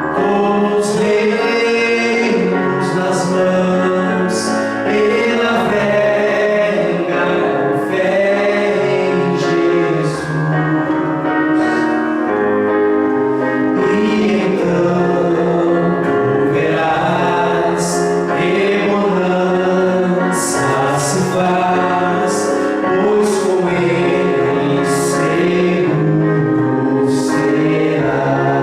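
A Portuguese gospel hymn sung by voices in harmony over instrumental accompaniment, with held notes and sung words throughout.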